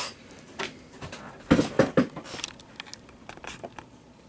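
Scattered clicks and knocks of a desktop computer case's side panel and thumb screws being handled and fitted, the loudest few about a second and a half in.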